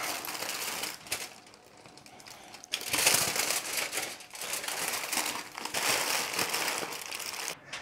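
Aluminium foil and wax paper crinkling as they are folded and crimped by hand into a parcel. A quieter lull about a second in, then the crinkling picks up again just before the three-second mark.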